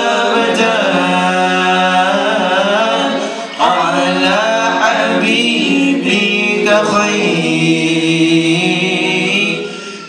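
Arabic qasida singing: a voice draws out long, winding sung notes, with a short breath break about three and a half seconds in.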